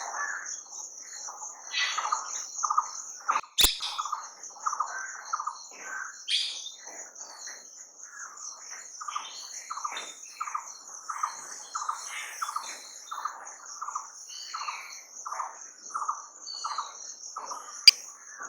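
Birds calling in a steady run of short notes about two a second, over a continuous high insect buzz. Two sharp clicks, one a few seconds in and one near the end.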